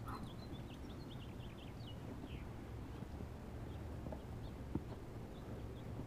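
Outdoor ambience: a steady low rumble, with faint high chirps of small birds through the first couple of seconds and a few soft knocks later on.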